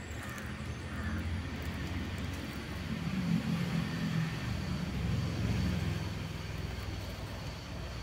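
Low rumble of motor-vehicle traffic that swells in the middle and eases off again.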